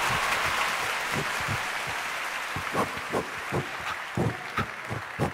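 Audience applause that fades over the first couple of seconds, followed by a run of soft, evenly spaced thuds about two to three a second, in step with a performer jogging across the stage.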